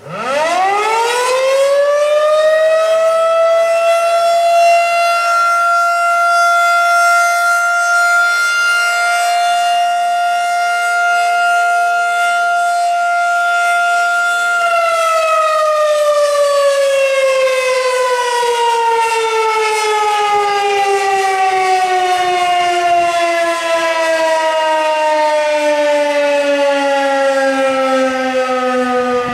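Federal Signal 2001-SRN electromechanical civil defense siren sounding a short alert as a weekly test. It winds up within about two seconds to one steady tone, holds it for about twelve seconds, then is cut off and slowly winds down, its pitch falling steadily.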